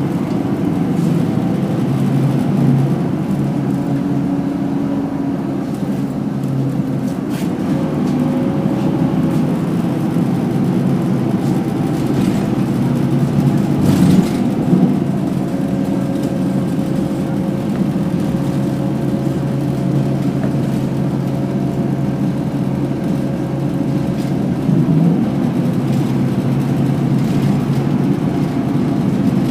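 Inside a moving city bus: steady engine and road noise, with a faint steady whine in the second half that rises near the end, and a few brief rattles around the middle.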